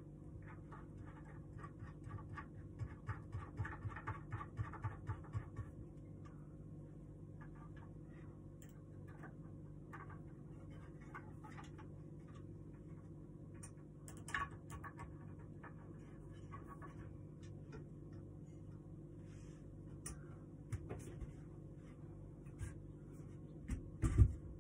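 Hand-assembling a small wooden table: a run of light, quick clicks for a few seconds as a screw is worked by hand, then scattered wooden knocks, and a loud thump near the end as the wooden frame is set down on the floor. A steady low hum runs underneath.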